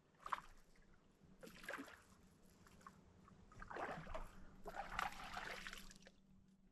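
Water splashing and sloshing in a few short bursts around a kayak, with quiet gaps between them.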